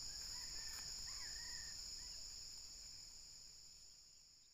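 Steady high-pitched chorus of insects, fading out over the last couple of seconds.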